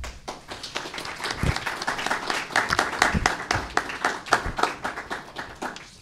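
Small audience applauding, a dense patter of many hands clapping that swells toward the middle and dies away near the end.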